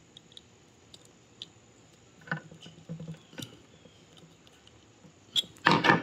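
Small metallic clicks and ticks of long-nose pliers gripping and turning a brass side-mount banana plug on speaker wire, tightening the connector, then a short, louder clatter of handling near the end.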